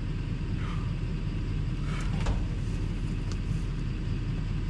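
A vehicle engine idling with a steady low rumble, and a brief knock about two seconds in.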